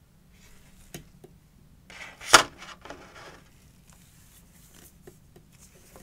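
Fragrance packaging being handled: light rustling and small taps, with one sharp knock or click a little over two seconds in.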